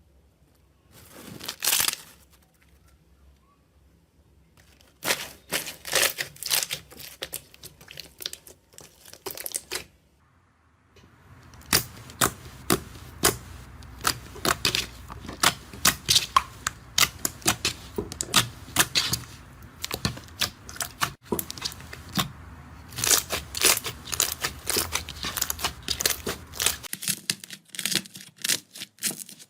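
Slime being squeezed and worked by hand, giving quick sticky pops and crackles in dense runs, with a short lull about ten seconds in.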